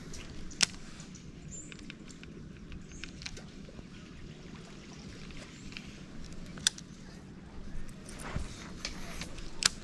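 Baitcasting reel being handled while a lure is cast and retrieved: three sharp, short clicks, after about half a second, near seven seconds and near the end, with some light handling noise, over a steady outdoor background.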